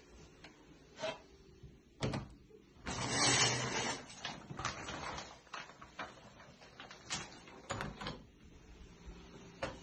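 Shower curtain pulled aside on its rod: a scraping, rattling rush about three seconds in, after a knock. Scattered clicks and knocks follow, and near the end a door is handled by its metal knob.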